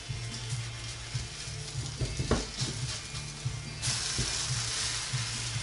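Oatmeal pancake batter sizzling in a hot frying pan. The sizzle jumps suddenly louder about four seconds in, with a few short scrapes of a spatula in the pan before that.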